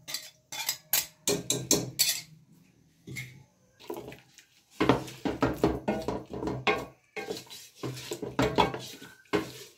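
Wooden spoon stirring chicken and yogurt in an aluminium pot: quick knocks and scrapes of the spoon against the pot, in runs with a lull from about two to nearly five seconds in.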